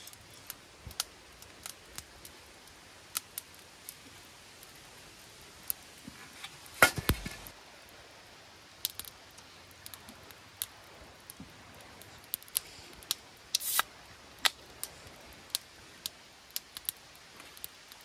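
Scattered short sharp clicks and light taps of objects being handled, over a faint hiss. The loudest is a knock with a brief rustle about seven seconds in, and there is another short scrape or rustle a little after halfway.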